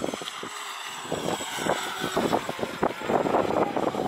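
Radio-controlled speedboat running flat out: a thin, steady high motor whine under the rushing and splashing of its hull and spray on the water, getting louder from about a second in.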